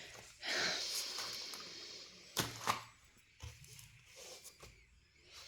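Sticker sheets and their plastic packaging being handled: a rustling crinkle that starts about half a second in and fades, then two light taps, then fainter rustling.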